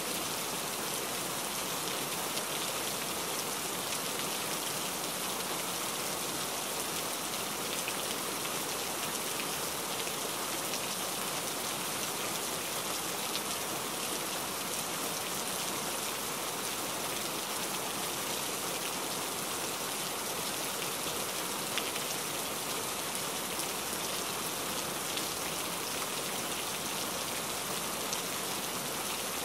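Steady rain: a dense, even hiss with faint ticks of single drops scattered through it.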